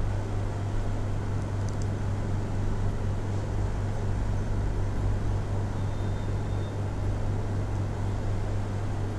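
Steady low hum with an even hiss behind it, unchanging and without distinct knocks or clicks.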